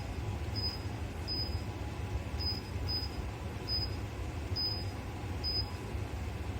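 Two 1500 W ceramic fan heaters running with a steady whoosh. About ten short high beeps come at irregular intervals over it, as the temperature setting is stepped down with the remote and the heaters acknowledge each press.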